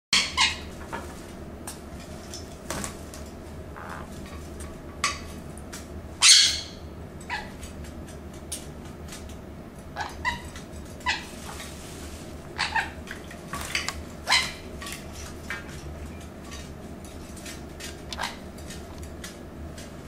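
Conures giving many short, sharp squawking calls, scattered irregularly, the loudest about six seconds in. The owner takes such calls for the flock's shared 'goodie' call, announcing a good bath to the other birds.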